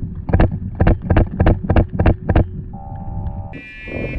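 Paintball marker firing a string of shots, about three a second, then a short buzzing tone near the end.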